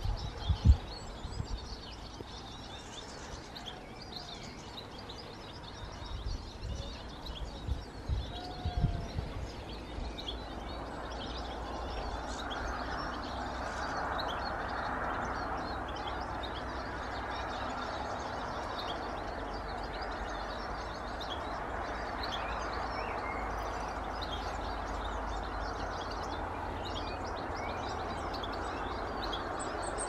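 Small garden birds chirping and twittering throughout, many short high calls. A few low thumps in the first ten seconds, then about ten seconds in a steady rumble comes in and holds under the birdsong, louder than the birds.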